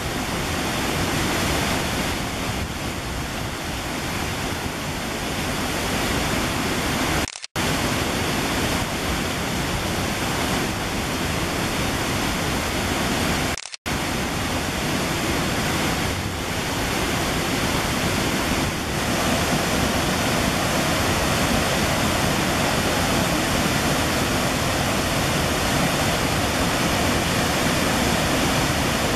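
Steady rushing of a waterfall and fast mountain stream, cut to silence for a moment twice.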